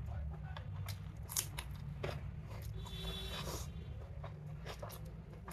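A person eating chicken biryani by hand: chewing with a few sharp wet mouth clicks and smacks, and fingers working through the rice on the plate.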